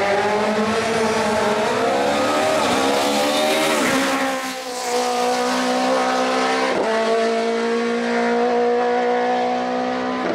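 Suzuki Swift GTi hill-climb race car's engine accelerating hard, its note climbing in pitch, with a sharp drop about four seconds in and a brief dip near seven seconds as it shifts up. It then holds a steady high note as the car climbs away.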